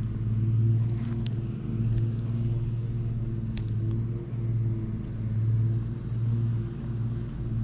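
A motor running steadily, a low hum that swells and fades about once a second, with two brief ticks.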